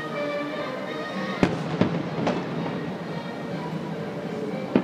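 Aerial firework shells bursting: three sharp bangs about a second and a half in, each half a second or less apart, and another near the end. Steady music plays underneath.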